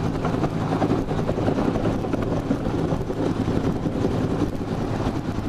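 Search-and-rescue helicopter running close by: a steady drone of rotor and engine with a constant low hum.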